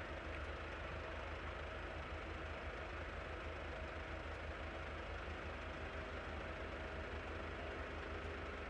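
Fire engine idling: a steady low engine rumble with a faint even hum over it, unchanging throughout.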